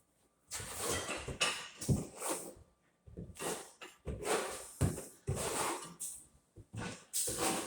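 A trowel scraping mastic tile adhesive across a wall: a series of short scraping strokes in several runs, with brief pauses between.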